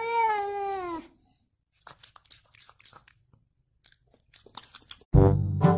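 A cat gives one long meow lasting about a second, its pitch rising and then falling slightly. Faint scattered clicks follow, and brass music comes in near the end.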